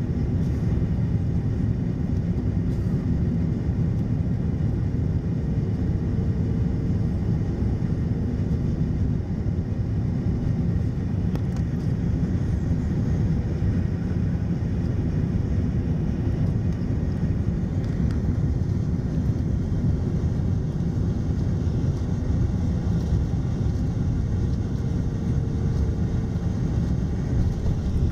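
Steady cabin noise of an Airbus A330-300 on final approach with flaps extended: a low rumble of jet engines and rushing air, heard through the fuselage.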